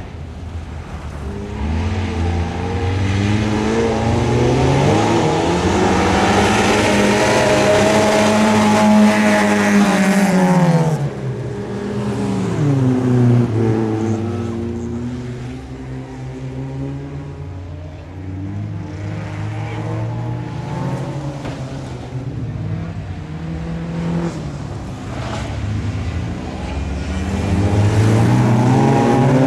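Several bilcross race cars' engines running hard past the track edge, revving up and easing off through the corners. The loudest pass builds over the first several seconds and drops off sharply about eleven seconds in, and the engines rise again near the end.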